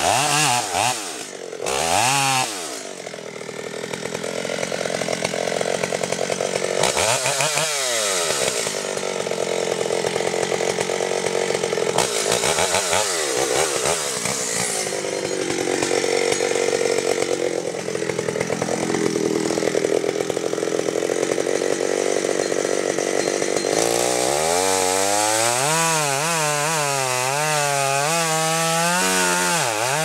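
Chainsaw cutting into the base of a large tree trunk in a felling cut. The engine runs loud under load, its pitch dipping and recovering a few times as the chain bites, then wavering up and down over the last few seconds.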